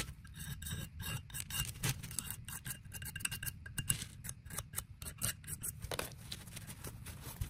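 Razor blade scraping old gasket sealant off the machined gasket face of a cast aluminium gearbox case in many short, irregular strokes, mixed with the rub of a paper shop towel wiping the surface.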